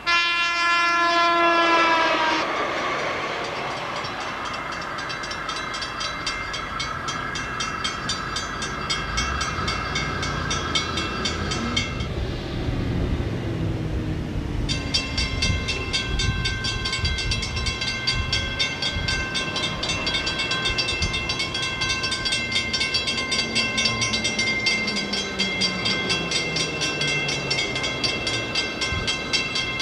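A train horn sounds briefly at the start, its pitch dropping as it passes. Then a train rumbles past while a grade-crossing warning bell rings rapidly and steadily. The ringing stops for a few seconds near the middle and then starts again.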